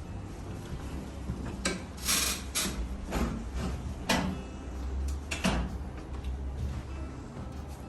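Scattered sharp clicks and short rustles as a patient is handled during a chiropractic adjustment, most of them between about one and a half and five and a half seconds in, over a low hum.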